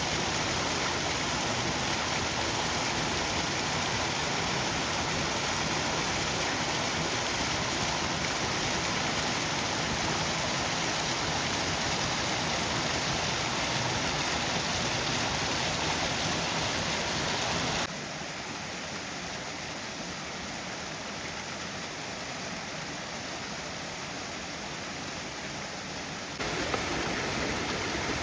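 Waterfall's falling water rushing steadily. It drops abruptly to a quieter level about two-thirds of the way through and comes back up abruptly near the end.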